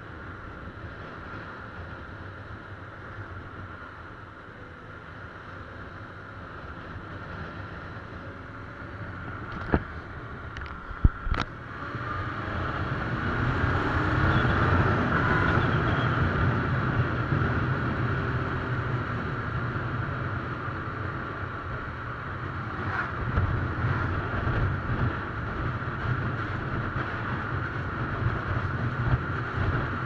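Suzuki Bandit motorcycle's inline-four engine running on the move, with wind rushing over the microphone. A few sharp knocks come about ten and eleven seconds in, and the engine grows louder from about twelve seconds in.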